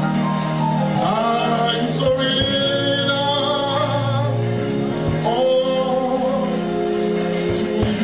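Gospel worship song: a man singing into a microphone over instrumental backing, with long held notes.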